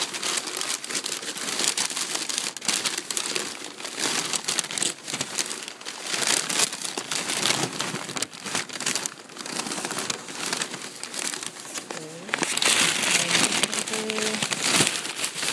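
Padded packing paper crinkling and rustling as it is handled and pulled out of a cardboard shipping box, an irregular run of crackles that gets louder for a couple of seconds near the end.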